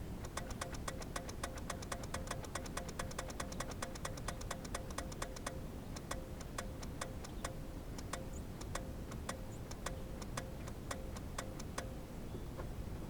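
Geo Metro's starter solenoid clicking rapidly and evenly while the engine does not crank, about five clicks a second at first, slowing to two or three a second and stopping near the end, with a faint steady tone under the clicks. It is the sign of too little battery power reaching the starter from a weak jump pack.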